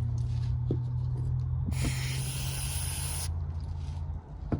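One burst of aerosol carburettor cleaner sprayed onto carburettor parts, a hiss of about a second and a half starting near the middle, over a steady low hum.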